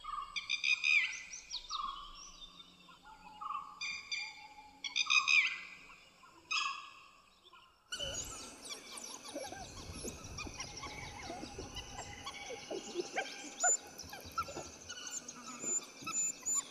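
Dhole (Indian wild dog) whistling calls: a series of about six short, clear, slightly falling whistles, used as contact calls within the pack. About eight seconds in it gives way to forest background with many birds chirping.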